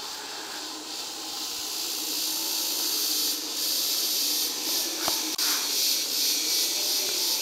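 Rainforest ambience: a dense insect chorus makes a steady high-pitched hiss that grows louder about three seconds in. A single click comes near the end.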